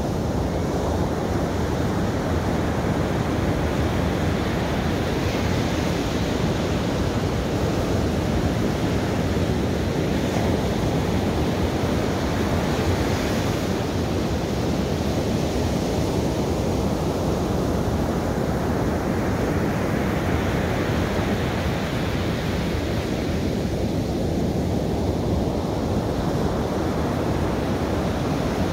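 Ocean surf breaking and washing up a sandy beach: a steady rush that swells and eases as each wave comes in.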